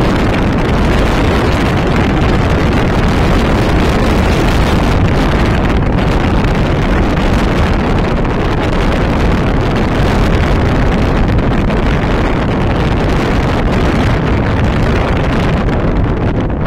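Wind rushing over the microphone of a moving car, a loud steady rumble and hiss mixed with road noise from the tyres and engine.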